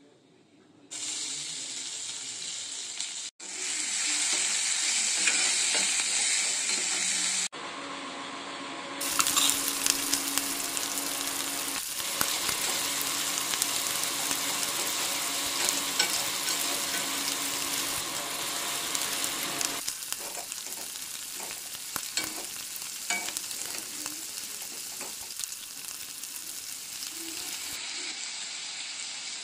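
Spices and onion paste sizzling in hot oil in a kadai, with a metal spatula scraping and clicking against the pan as the mixture is stirred. The sizzle starts about a second in, and the stirring clicks are busiest from about nine seconds in.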